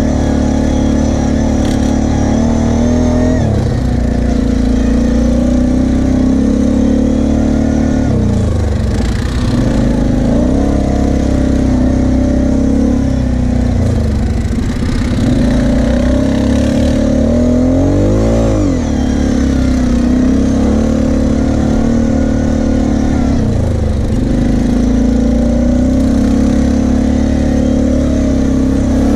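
Kawasaki KFX 700 V-Force quad's V-twin engine running under way, its note sagging as the throttle is eased and climbing again several times, with a quick rev up and back down about two-thirds of the way through.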